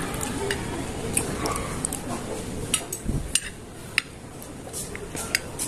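Metal cutlery clinking and scraping against a plate while a burger steak patty is cut into pieces, in scattered sharp clinks, with a dull knock about three seconds in.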